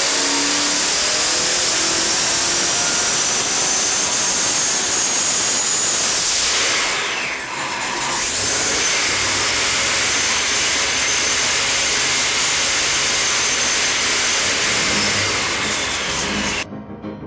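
Supercharged small-block Chevy V8 running hard on an engine dyno. Its high supercharger whine climbs with the revs for about six seconds, then falls away sharply. The engine picks up again and runs loud and steady until the sound cuts off abruptly near the end, where piano music starts.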